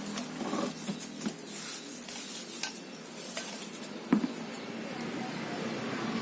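Plastic parts and packaging being handled: rustling with scattered light clicks and clatter, and one sharper knock about four seconds in.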